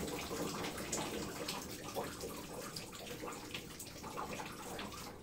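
Water from a soaked, wrung-out towel dripping and trickling into a plastic tub in irregular drips and splashes, thinning out a little near the end.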